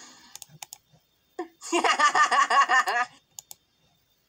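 Scattered mouse clicks and computer-keyboard taps. A short burst of a voice in repeating pulses, about a second and a half long, comes in the middle and is the loudest sound.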